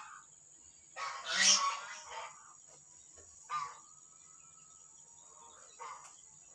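Loud harsh honking bird calls: a burst about a second in, then shorter, fainter calls later.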